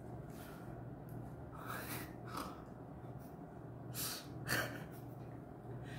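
A few short breaths and sniffs close to the microphone, about four of them, over a steady low hum.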